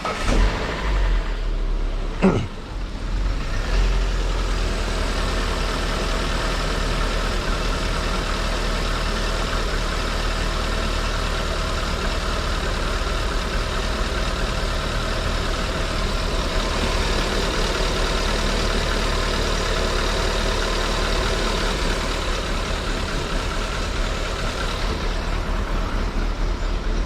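Proton Saga's four-cylinder engine, upgraded to 1.6 litres, starting up: uneven sound with a sharp knock about two seconds in, then it settles within a few seconds into a steady, even idle on freshly fitted spark plugs.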